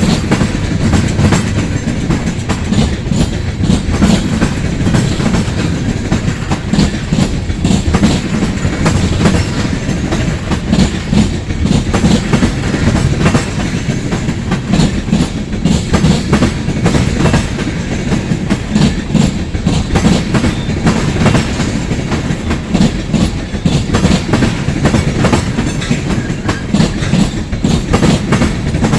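Freight cars of a long train rolling past at track speed: a steady rumble of wheels on rail with a rapid, continuous clickety-clack of wheels crossing rail joints.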